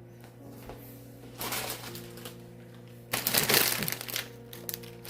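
Crinkling and crackling as the Taiwanese vermicelli is handled, in a short burst about a second and a half in and a louder one from about three seconds in, over soft background music.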